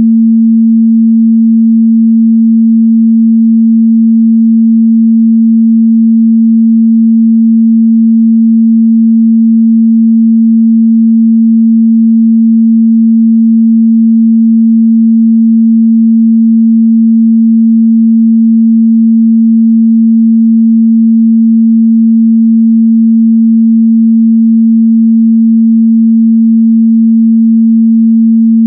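Steady 226 Hz sine test tone, a single pure low hum held at a constant loud level with no change.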